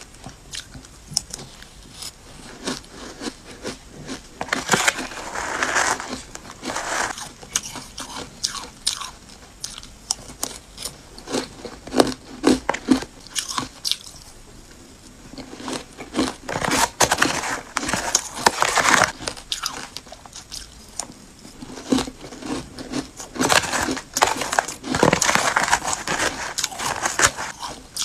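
Ice dusted with matcha powder being bitten and crunched, mouthful after mouthful, close up: clusters of sharp crackling crunches with short quieter pauses between bites.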